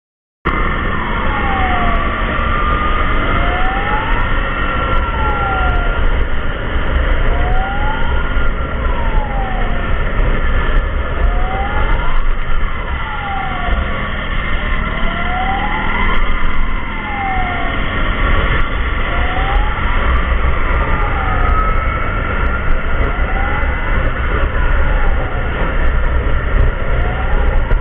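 Emergency vehicle siren wailing, its pitch sweeping slowly down and back up about every four seconds, over a steady low rumble of traffic. It cuts in suddenly about half a second in.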